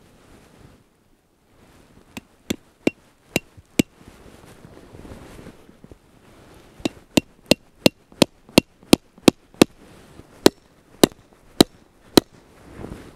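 Small hatchet chopping into a log on a chopping block: sharp strikes with a slight ring. A short run of five comes first, then a steady run of about fifteen blows at roughly three a second.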